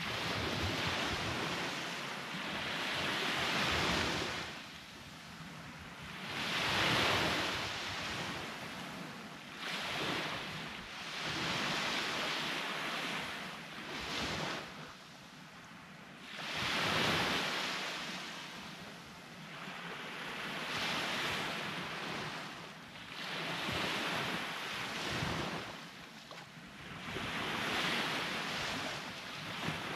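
Sea waves breaking and washing onto a beach, the surf swelling and falling away every two to four seconds.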